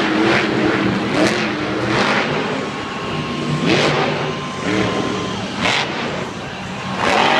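Metal Mulisha monster truck's supercharged V8 revving hard in repeated surges, its pitch rising and falling during a freestyle run.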